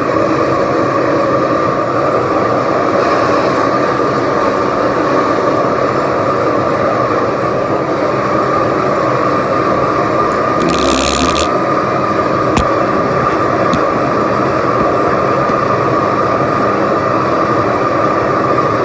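Metal-melting furnace burner and blower running steadily, with a constant tone over the noise. A brief hiss about 11 seconds in.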